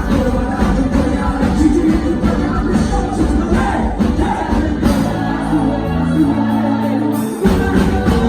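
Upbeat quadrilha junina dance music with singing over heavy percussion. About five seconds in, the beat thins to a held chord, then the full beat comes back suddenly about two and a half seconds later.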